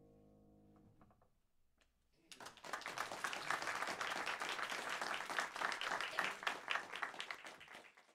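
The final chord of a grand piano piece dies away. Then, from about two seconds in, an audience applauds and fades out near the end.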